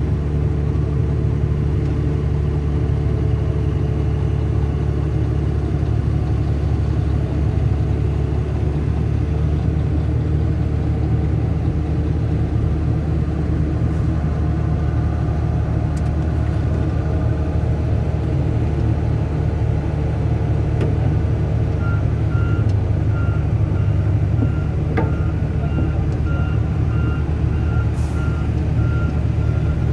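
Volvo EC480DL excavator's diesel engine running steadily with a deep, even hum. About two-thirds of the way through, a warning alarm starts beeping repeatedly at a steady rate.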